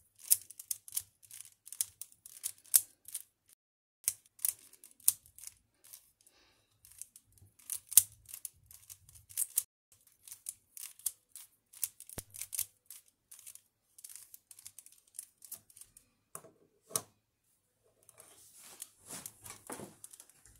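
A small 3x3 Rubik's cube being turned rapidly by hand: its plastic layers click in quick, irregular runs with brief pauses, the sound of a speed-solve in progress.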